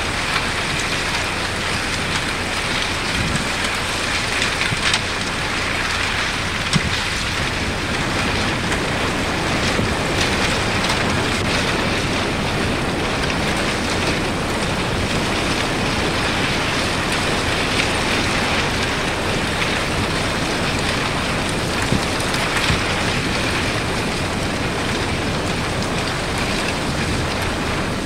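Masses of thin, broken lake-ice shards jostling and grinding against each other as waves push them onto the shore: a steady dense crackling and tinkling, with scattered sharper clicks.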